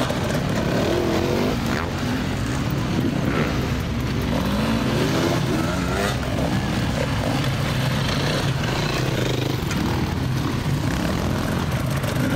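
Several enduro dirt bike engines running at low speed, with repeated short throttle revs that rise and fall in pitch as the bikes pick their way over a rough section.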